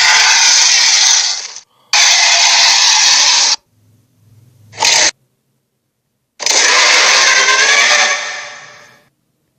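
Harsh, noisy roar sound effects presented as a shark or megalodon: two long loud blasts, a short one about five seconds in after a faint low hum, and a longer blast near the end that fades away.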